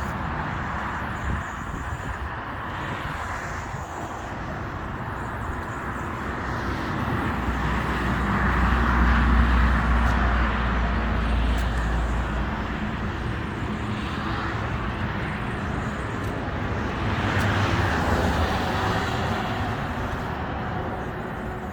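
Industrial food mixer running steadily, a continuous machine noise with a low rumble that grows louder for a few seconds about a third of the way in and again near the end.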